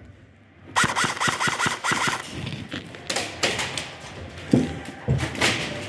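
Airsoft gun firing a rapid full-auto burst, a fast mechanical rattle starting about a second in, followed by shorter bursts and knocks.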